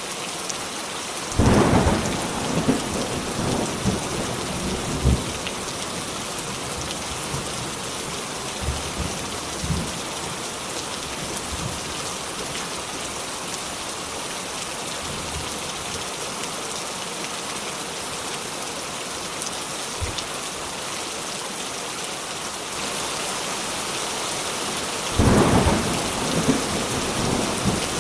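Steady heavy rain with two thunderclaps: a loud crack about a second and a half in that rumbles on for several seconds, and another near the end.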